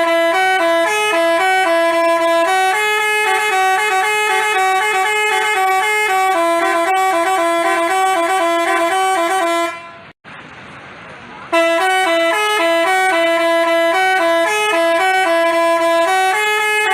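Basuri telolet horn, a multi-tone bus horn, playing a quick stepped melody of several notes at once. It cuts out about ten seconds in for about a second and a half, then starts the tune again.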